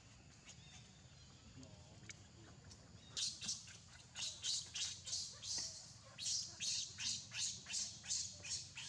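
Baby macaque giving a rapid run of short, shrill squeals, about three a second, starting about three seconds in.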